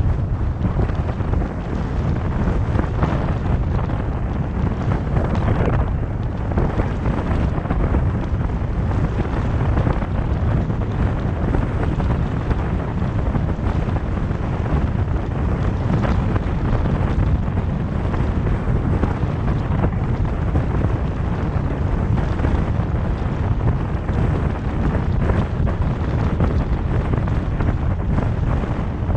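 Steady wind rushing over the microphone, mixed with the road and tyre noise of a car driving at speed.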